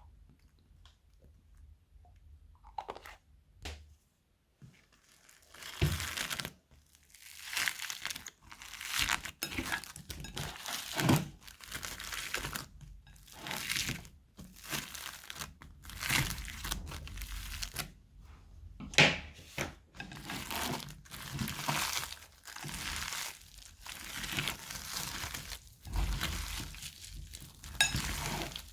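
Crinkling and tearing of crunchy slime-making material worked by hand, in irregular handfuls. It is quiet at first with a few faint clicks, then dense crinkling from about six seconds in, with one sharp crunch about two-thirds of the way through.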